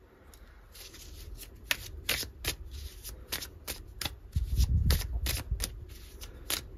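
A tarot deck being shuffled by hand: a run of quick, sharp card snaps and riffles starting about a second in, with some dull thuds around the middle.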